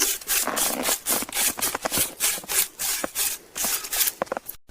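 Spruce bough sweeping snow off a fire spot in quick, repeated brushing strokes, a few a second, that stop abruptly near the end.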